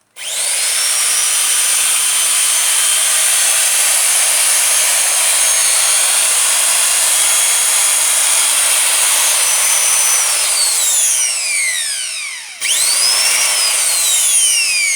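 Large Makita angle grinder, freshly rebuilt with two new bearings and new carbon brushes, switched on and running at full speed with a steady high whine, which is the ideal sound of a machine running true on good bearings. It is switched off about ten seconds in and winds down in falling pitch, then is started again briefly and winds down once more near the end.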